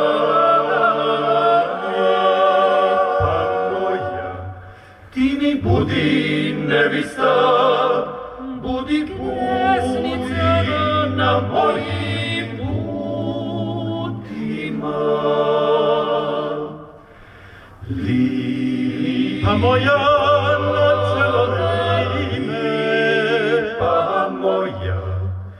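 Male klapa ensemble singing in close harmony over a sustained bass line, the phrases breaking off into brief pauses about five seconds in and again around seventeen seconds in.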